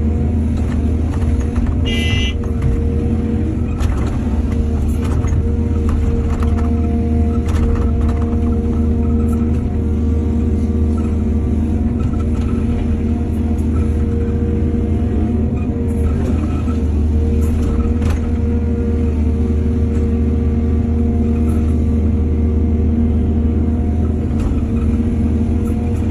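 Excavator's diesel engine running steadily, with scattered knocks and clanks from the bucket and soil being worked. A brief high squeal about two seconds in.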